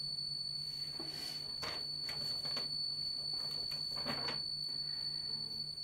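Theremin holding one high, steady tone over a low steady hum, with a few soft clicks and rustles in the middle.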